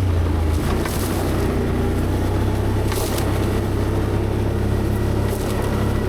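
V-twin ATV engine running steadily at trail speed, with a small shift in engine pitch about half a second in. Two brief swishing noises come over it about one and three seconds in.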